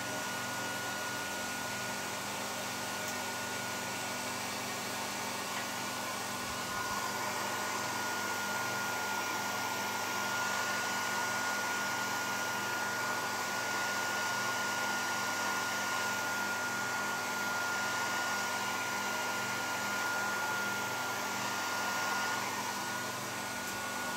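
Handheld hair dryer running steadily, blowing through a kitchen strainer used as a diffuser, with a steady high whine over the rush of air.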